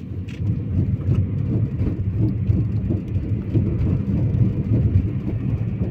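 Steady low rumble of a car driving along a street, heard from inside the cabin.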